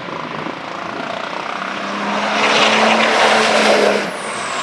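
Diesel pickup truck accelerating hard at full throttle, the engine and turbo noise building to a peak about three seconds in. The sound drops suddenly about four seconds in, as a high whine falls in pitch.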